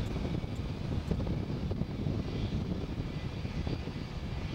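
Jet engines running out of sight, heard as a steady low rumble with a faint high whine.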